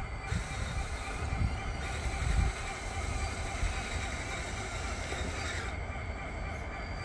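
Radio-controlled model bulldozer running as it pushes sand: a steady mechanical whine and clatter from its drive, with a few low thuds in the first couple of seconds.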